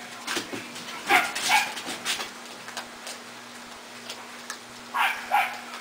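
Pembroke Welsh corgi puppies giving short, falling yips and whimpers, two about a second in and two more near the end, over scattered clicks and crunches of puppies eating dry kibble from a metal bowl.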